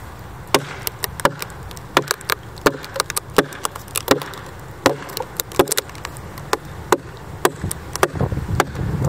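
A single axe chopping with short, quick strokes into the split of a red oak log, each blow a sharp wooden knock, irregular, about two or three a second.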